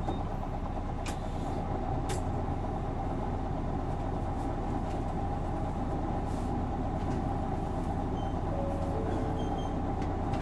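Isuzu Erga city bus's 6HK1 inline-six diesel idling steadily, heard from inside the passenger cabin.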